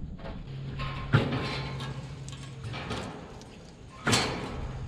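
Sheet-metal clatter and rubbing as a heat pump's condenser fan blade is worked off the fan motor and lifted off the top grille, with a sharp knock about a second in and a louder metallic clank with a short ring about four seconds in.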